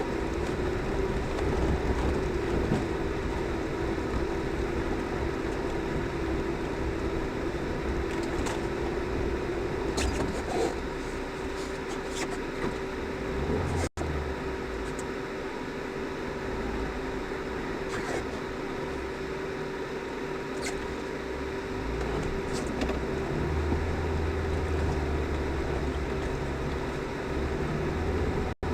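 Lada Niva being driven: engine and drivetrain running steadily with a constant whine, over a continuous rumble, with a few scattered knocks and clicks partway through. The sound drops out briefly twice.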